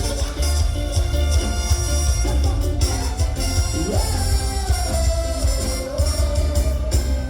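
Live band music with a steady, heavy bass; a melody line slides up about four seconds in and holds.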